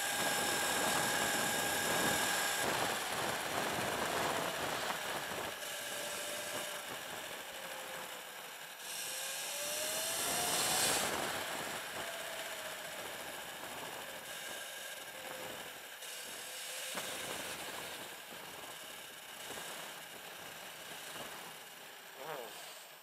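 Sur Ron electric dirt bike's motor whining as it rides along, the whine rising in pitch about halfway through and then falling, over wind and road noise.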